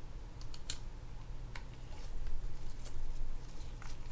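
Scattered light clicks and ticks of a small screwdriver working the top screw of a Penn Fierce III spinning reel's rotor, with small metal parts being handled, over a steady low hum.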